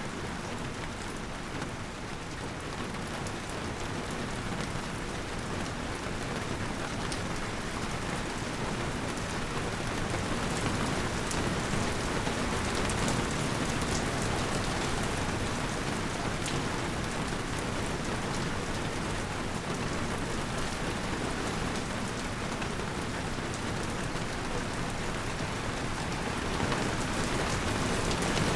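Steady rain falling, a dense even hiss of drops with scattered sharper drop ticks, growing slightly heavier toward the end.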